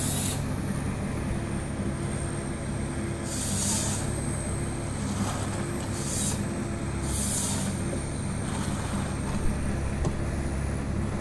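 Log processor's diesel engine drones steadily while its harvester head cuts logs. Several short hissing bursts from the head's saw come through every second or few seconds.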